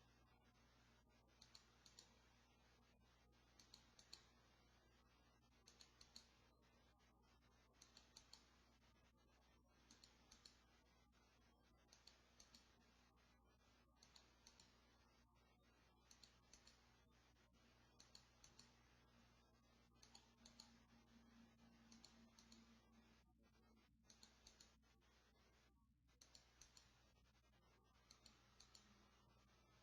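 Near silence with faint clicks in small clusters, about one cluster every two seconds, over a low steady hum.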